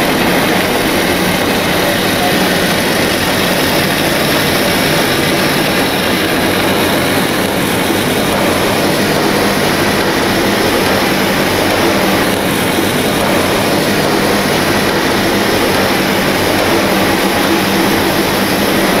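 Puffed-snack plant machinery running: extruder, conveyors and tumbling drum give a loud, steady, even whirring noise with a faint low hum, without let-up.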